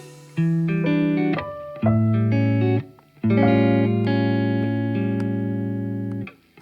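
Background music: guitar playing sustained chords in short phrases with brief gaps between them, stopping near the end.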